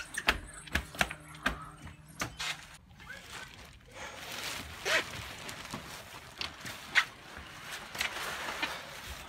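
Thin plastic rain poncho crinkling and rustling as it is clutched and shaken, with scattered sharp knocks throughout.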